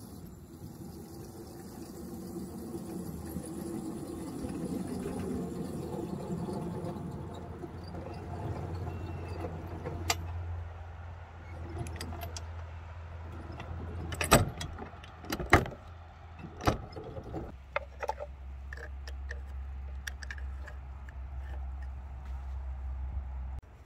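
Small engine of a ride-on miniature locomotive running as it approaches, its rumble building, then idling with a steady low hum. A few sharp clanks come about two-thirds of the way through, while the coupler is being handled.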